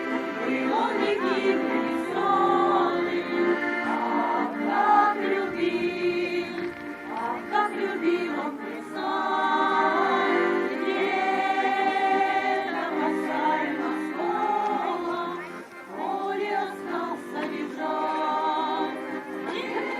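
Choir singing a song with many voices together in sustained sung lines.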